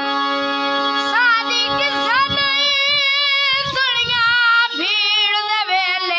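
A boy singing loudly in a wavering, ornamented voice over the steady held notes of a hand-pumped harmonium; his voice comes in about a second in.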